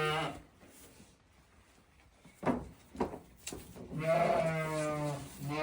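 Sheep bleating: the tail of one long bleat at the start, then another long bleat about four seconds in. Between them come a few sharp knocks.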